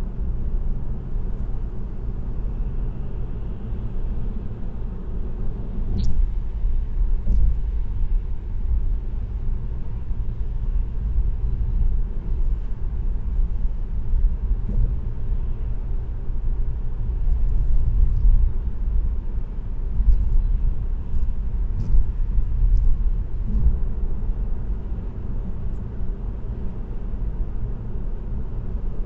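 Road and engine noise of a car cruising on an expressway: a steady low rumble, with a few faint clicks here and there.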